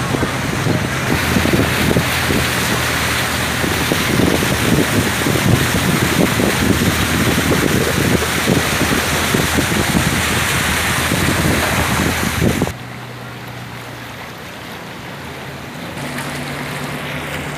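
Pickup truck driving through deep floodwater: the engine running under a loud, continuous rush and splash of water thrown off the wheels. About two-thirds of the way through it cuts off suddenly to a quieter, steady rush of floodwater flowing across a road.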